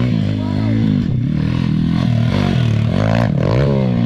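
An SSR pit bike's small four-stroke single-cylinder engine running, its pitch rising and falling several times as the throttle is worked.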